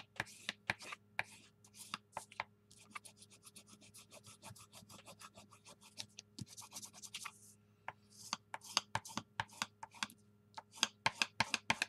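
Hands rubbing and smoothing freshly glued book pages flat on a tabletop, pressing them so the glue bonds: a run of short, papery swishes, quicker in the first half, with a brief pause about two-thirds through.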